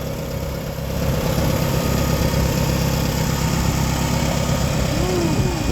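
Farmall 140 tractor's four-cylinder gasoline engine idling steadily, freshly rebuilt with new rings and bearings and running smoothly.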